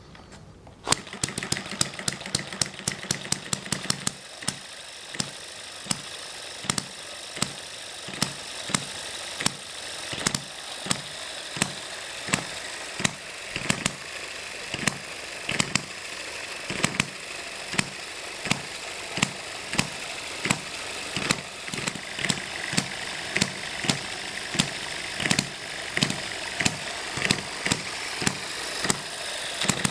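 M90 hit-and-miss four-stroke model engine starting about a second in and firing rapidly for a few seconds, then settling into single sharp firing pops roughly every two-thirds of a second with coasting in between: the hit-and-miss cycle, the exhaust valve held open on the missed strokes.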